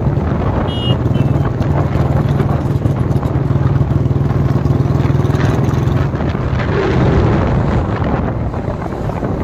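Royal Enfield Classic 350's single-cylinder engine running steadily at highway cruising speed, heard from the rider's seat with wind rushing over the microphone. The engine note weakens about six seconds in.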